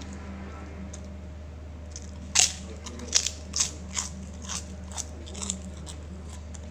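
A person biting into and chewing a crisp fried cracker close to the microphone. One loud crunch about two and a half seconds in, then about half a dozen lighter crunches, roughly two a second.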